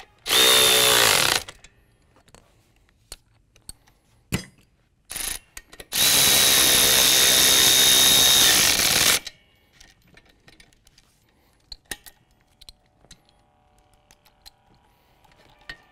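Cordless electric ratchet running in short bursts, driving the nuts onto seat-mount bolts: a run of about a second, a brief blip, then a run of about three seconds, each with a steady high motor whine. Light clicks and taps of tools and metal parts between the runs.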